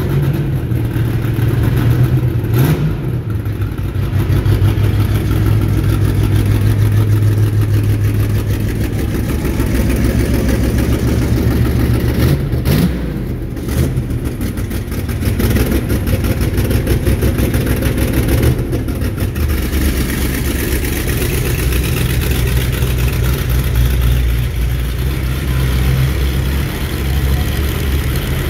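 A vehicle engine running at a steady low pitch, which drops lower about two-thirds of the way through, with a few brief knocks.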